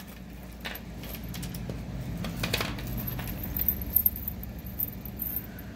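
Costume jewelry (chains, beads and a metal bangle) clinking and rattling as a tangled lot is pulled apart by hand on a wooden tabletop, with scattered light clicks.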